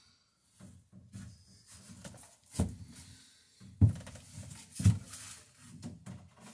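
Wooden knocks and handling noise from work on a wooden dory's planking: three sharp, dull-thudding knocks about a second apart, with scraping and shuffling between them.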